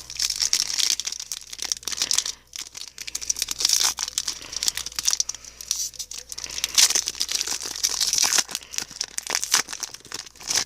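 Wrapper of a baseball card pack crinkling and tearing as it is opened, a dense rustle with many small crackles and a couple of short pauses.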